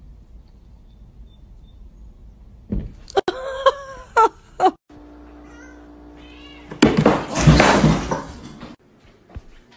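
A kitten meowing, a few short calls that bend in pitch, about three seconds in. Later comes a loud noisy burst lasting about two seconds.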